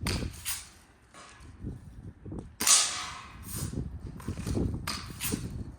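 A Daisy Red Ryder lever-action BB gun being fired: a series of sharp snaps a second or so apart, the loudest about two and a half seconds in.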